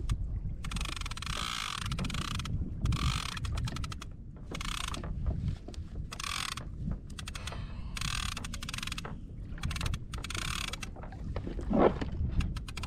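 Shimano Talica 16 lever-drag fishing reel working in repeated bursts of a second or so with short pauses between, its gears or drag making a fast mechanical whir. Low wind and water noise runs underneath.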